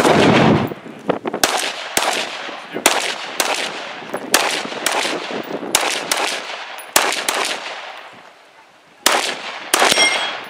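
Competition gunfire: about fifteen single shots, most about half a second apart, from a handgun and then a shouldered long gun, with a pause of over a second before the last few shots. A steel target rings briefly near the end.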